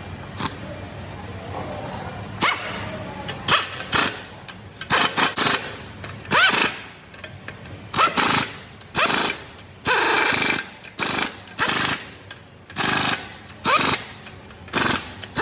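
Impact wrench rattling in short bursts, roughly one a second, some bursts starting with a quick rising whine as the tool spins up.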